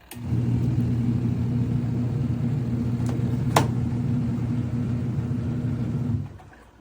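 Portable twin-tub washing machine's wash motor running with a steady low hum, agitating the load, then cutting out about six seconds in as the wash cycle pauses before reversing. A single sharp click about halfway through.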